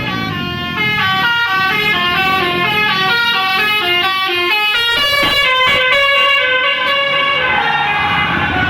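Basuri V3 telolet bus horn playing a fast melody of short stepped notes. About halfway through come a few sharp clicks, then longer held notes.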